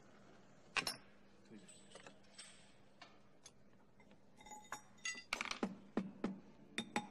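Metal-on-metal clinks of a small gold ring being worked on a steel ring mandrel. There is a sharp clink about a second in, a few faint scrapes, then a quick run of ringing taps in the second half.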